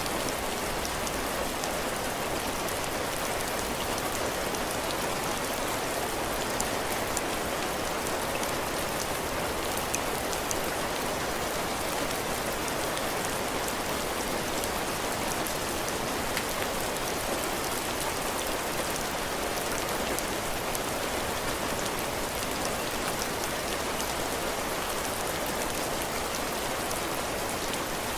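Heavy rain falling steadily, drops striking the roof and the ground: a constant rushing hiss with many small, sharp drop ticks.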